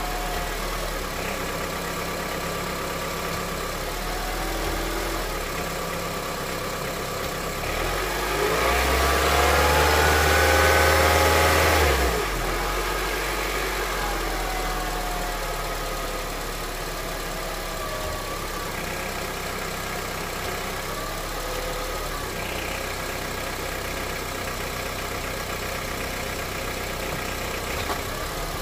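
Honda CR-V engine idling, with a knock that stays the same on thicker 10W-40 oil; its cause is unknown to the owner. About eight seconds in it is revved for a few seconds, rising in pitch, then drops back to idle.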